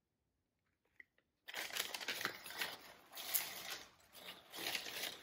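Paper packaging rustling and crinkling as hands rummage through a box, in uneven bursts that start about a second and a half in.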